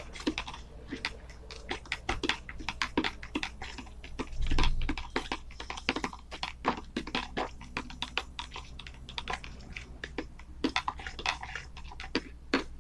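Grains sprinkled by hand into a plastic tub, landing as a quick, irregular run of small ticks, with a dull bump about four and a half seconds in.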